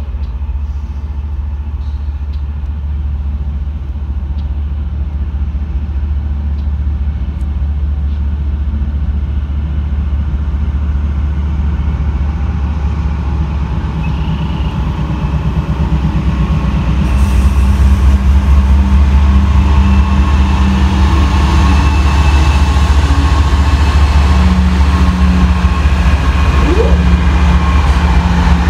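GE diesel-electric freight locomotive approaching at low speed at the head of a loaded oil train, its deep engine rumble growing steadily louder as it nears and slows toward a stop.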